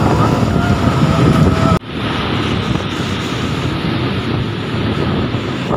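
Wind rushing over the microphone on a moving motorbike, with road and traffic noise underneath. The sound breaks off sharply about two seconds in and goes on as a steadier rush.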